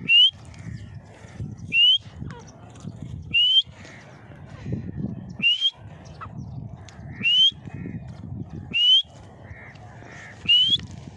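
Grey francolin calling: a loud, shrill rising note repeated seven times, roughly every one and a half to two seconds, over a low rumble.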